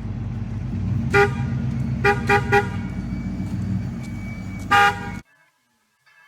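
Car horn honking over a steady low engine rumble: one short honk, then three quick honks, then a longer honk, before the sound cuts off suddenly about a second before the end.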